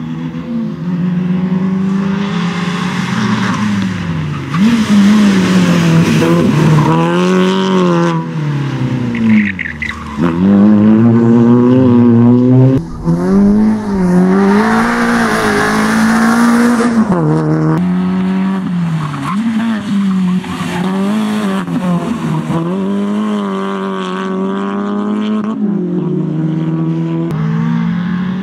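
Peugeot 206 rally car engine revved hard, its pitch repeatedly climbing and dropping as it works through the gears and brakes for tight turns. Tyres squeal through the corners, most strongly around the middle.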